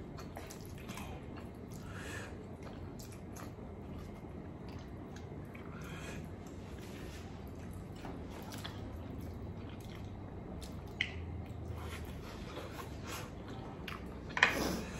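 A person eating instant noodles close to the microphone: quiet chewing with small wet clicks and mouth sounds, and a louder short wet sound near the end.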